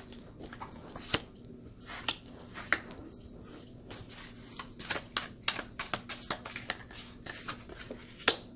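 A deck of new matte oracle cards, still a little sticky, being shuffled by hand: a run of soft, irregular clicks and snaps that come thicker in the second half.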